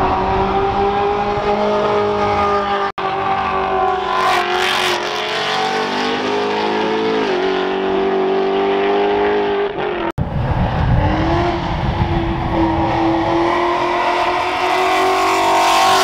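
Sports car engines running hard on a race track, their exhaust note rising and falling with throttle and gear changes as the cars lap. The sound breaks off sharply for an instant twice, about three and ten seconds in, and a different engine note follows each break.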